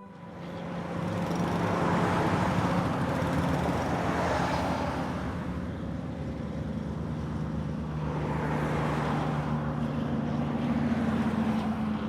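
A vehicle engine running steadily on the move, with road and traffic noise swelling twice.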